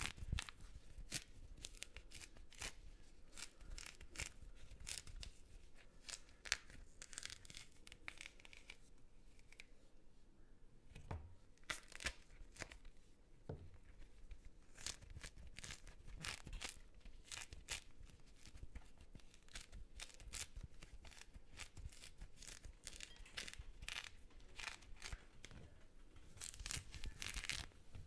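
A mandarin being peeled by hand, close-miked: the rind tears away from the fruit in many short, crackling rips, with a quieter pause about nine seconds in.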